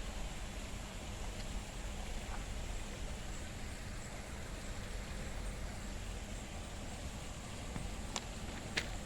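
Steady outdoor background noise, an even hiss with a low rumble, with a couple of sharp clicks near the end.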